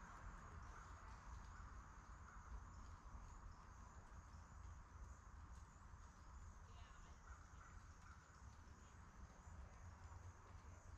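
Near silence: faint outdoor ambience, a low rumble under a faint steady high hiss, with a few faint chirps about seven seconds in.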